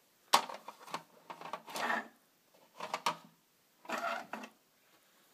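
Plastic doll and toy dollhouse furniture being handled and set down on a dollhouse shelf: a sharp knock about a third of a second in, then three bursts of scraping and clatter.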